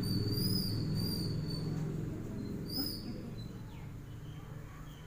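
A steady low hum that slowly fades, with high, wavering bird-like chirps over it, a couple in the first two seconds and another just under three seconds in.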